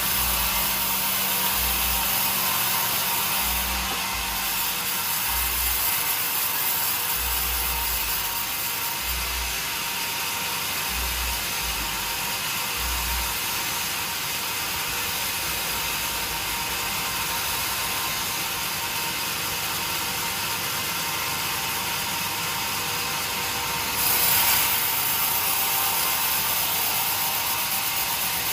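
Sawmill machinery running as a saw cuts through timber, with irregular low thuds during the first half and a louder surge near the end.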